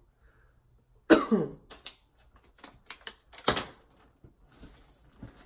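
A person coughing after drawing on a vape: a loud cough about a second in, with a falling voiced tail, and another at about three and a half seconds. Small clicks come between the two.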